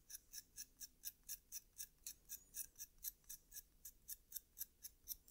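Fiberglass pen scrubbing corrosion off the metal pins of an Amiga's Gary chip. It makes faint, quick, even scratching strokes, a little over four a second.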